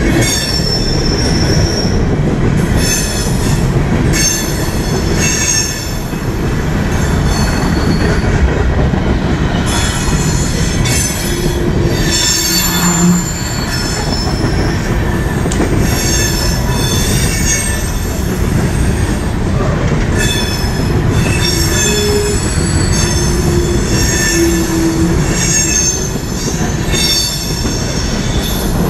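A CSX train's cars rolling past close by: a steady, loud rumble of wheels on rail, with high-pitched wheel squeal that comes and goes every second or two.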